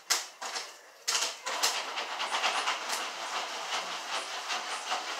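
Jiffy Pop popcorn in its foil pan being shaken over a gas burner: a few separate pops, then from about a second in a dense, continuous crackle of kernels popping fast, with the pan rattling and a hiss underneath.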